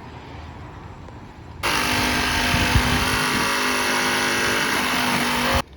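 A loud, steady motor noise with a low hum running through it. It starts suddenly about a second and a half in and stops suddenly near the end.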